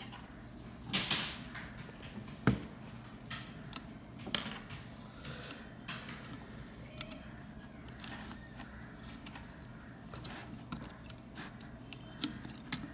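Scattered clicks and knocks of hands handling a plastic device housing with a circuit board and small parts on a table, the loudest about a second in and a sharp knock a moment later.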